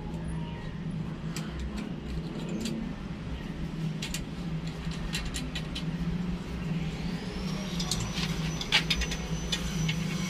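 A steady low motor-like hum with scattered sharp clicks and light knocks. Past the middle, a faint high thin tone rises and then holds, and the clicks come thicker.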